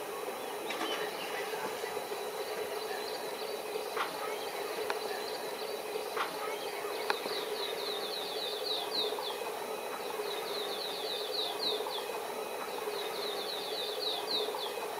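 A bird calling in three bouts of quick, repeated high chirps, each chirp sweeping downward, over a steady low background hum with a few faint clicks.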